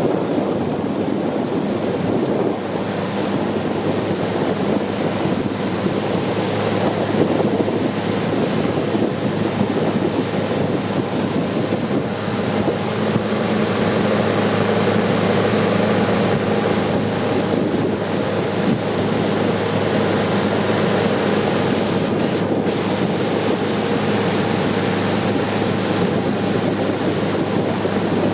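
Long-tail boat under way: its engine runs at a steady speed under the rush of water and wind buffeting the microphone.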